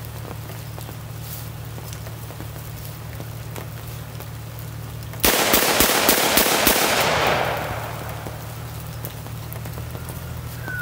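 Six rapid shots from a short-barrelled Ruger .44 Magnum revolver loaded with Buffalo Bore ammunition, fired in about a second and a half starting about five seconds in. The echo dies away over the next second.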